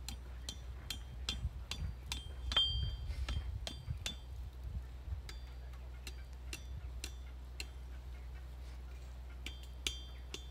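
Hand hammer striking hot steel on a steel anvil: a run of light blows, each with a short metallic ring, coming quickly at first, thinning out in the middle and picking up again near the end. The smith is bending the end of the bar round to form the curl of an S hook.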